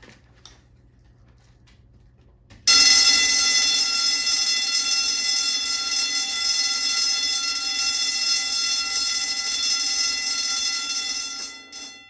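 Simplex electric fire alarm bell ringing continuously and very loudly, measured at 116.5 decibels at ten feet. It starts suddenly a few seconds in and cuts off shortly before the end, its ring dying away.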